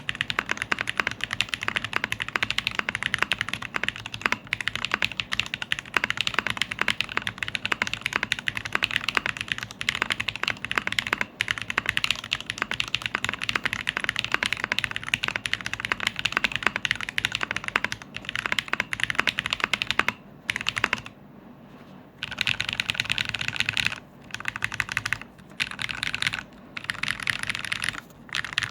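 Noir N2 Pro keyboard being typed on quickly and continuously, in a dense run of key clicks, with a pause of about two seconds about two-thirds of the way through and a few short breaks near the end.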